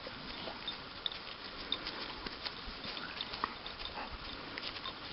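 A dog snuffling and moving close to the microphone, with many small scattered clicks.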